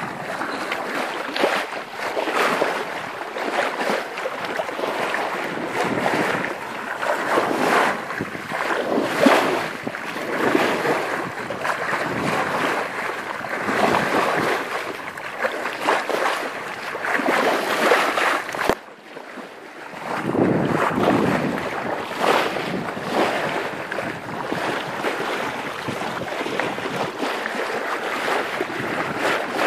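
Sea water rushing and splashing at the bow of a ketch under sail, coming in uneven surges, with wind on the microphone. The sound drops away sharply for about a second two-thirds of the way through, then comes back.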